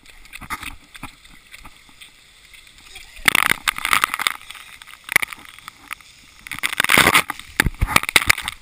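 Water from splash-pad sprayers falling and splashing onto a waterproof action-camera housing, in two loud bursts of splatter, one a little past three seconds in and another near the seven-second mark.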